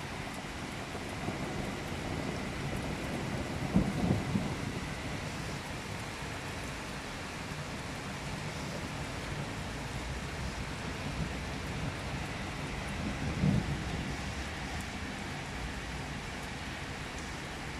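Thunderstorm: a heavy downpour of rain falling steadily, with two short, louder low rumbles of thunder, one about four seconds in and one about thirteen seconds in.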